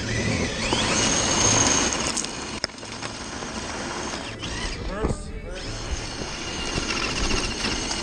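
RC crawler's brushless motor whining under throttle, its tires spinning and scrabbling on loose rock and dirt. The high motor whine comes and goes as the throttle changes.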